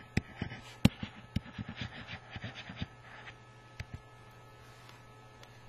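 Pen or stylus tapping and scratching on a writing tablet during handwriting: a run of small clicks and short faint strokes in the first three seconds, then a faint steady hum.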